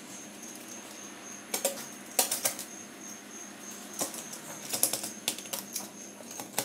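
Pizza-cutter wheel rolling through a baked pizza crust, with several clusters of sharp clicks and crunches as the wheel presses down onto the metal pizza pan.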